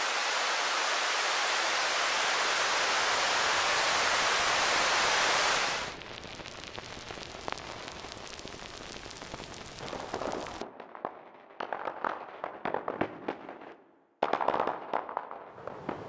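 Synthesized rain from software synths: a steady filtered-noise hiss for about six seconds that stops abruptly, then a layer of sharp, separate raindrop clicks built from shaped noise, falling irregularly and louder from about eleven seconds in, with a brief break near fourteen seconds.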